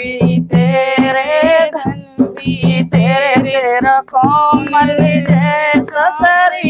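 A woman singing a Hindi devotional bhajan (satsang bhajan) with a steady percussion beat behind her voice.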